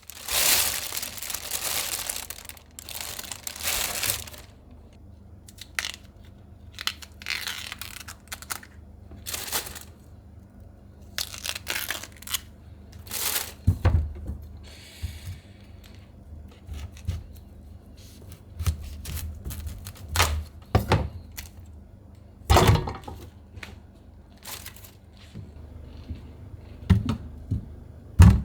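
Irregular tearing, crackling and crinkling sounds come in separate bursts with short gaps between them. A few dull thuds fall in the second half.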